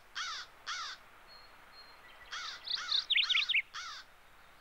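A crow cawing in short, harsh, repeated caws. There are two caws in the first second, then a pause, then a run of four more with a quick warbling chatter in among them.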